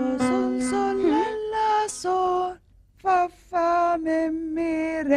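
A cartoon child's voice singing a simple song in Arabic in short held notes, with a short pause in the middle. A sustained piano note is still dying away under the first second of singing.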